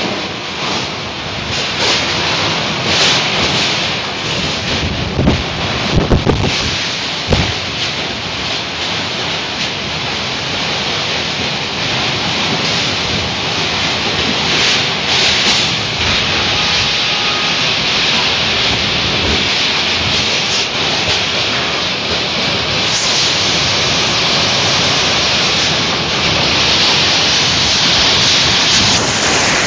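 Strong storm wind and heavy rain during a tornado, with gusts buffeting the microphone in several heavy thumps about five to seven seconds in.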